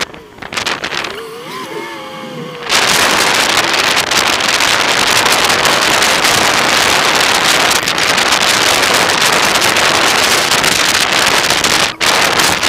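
Loud, even rushing noise on the dashcam sound track of an off-road vehicle, starting about three seconds in. Before it come a few seconds of fainter wavering, gliding tones.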